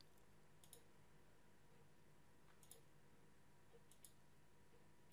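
Faint computer mouse clicks, three of them, each a quick press-and-release pair of ticks, over a low steady hum.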